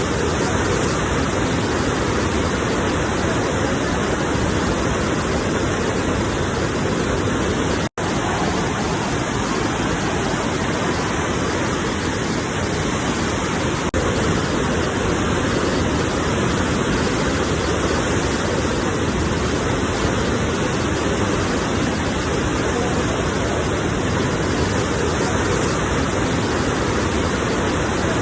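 Continuous rushing water of sea surf, an even unbroken wash without distinct swells, broken by a split-second dropout about eight seconds in.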